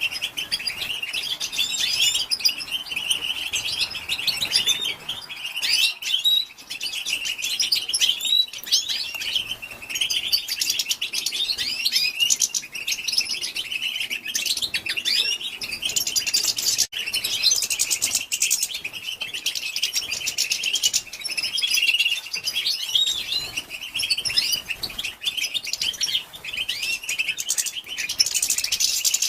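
European goldfinch twittering: a continuous stream of quick high chirps, short trills and slurred notes, the female's 'bitbita' chatter call.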